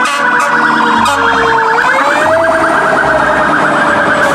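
Emergency-vehicle siren wailing, its pitch rising about two seconds in and then slowly falling, over a fast-warbling higher tone.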